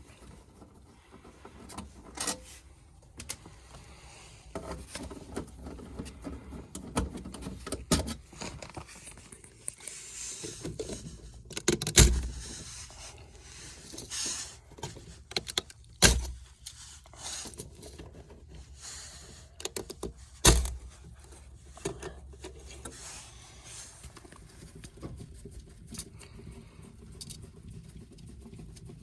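Hands and tools working on an air handler: irregular metallic clicks, rattling and rustling, with three sharp knocks spaced about four seconds apart in the middle.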